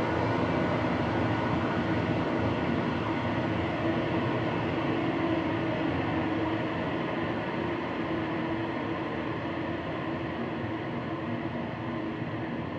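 Steady rumbling drone with a few faint held tones, slowly fading.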